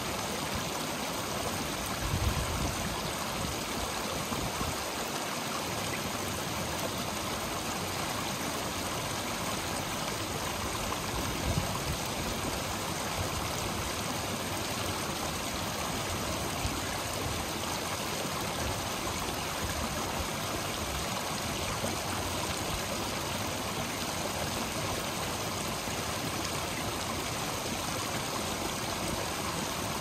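Shallow rocky mountain brook running steadily over and between stones, a continuous rushing and splashing of water.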